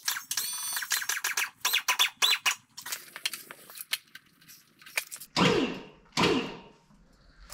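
Metal clicks and knocks from handling tools and fittings at the base of a tow-truck crane, with a brief high squeak under a second in, then two louder clanks a little past halfway.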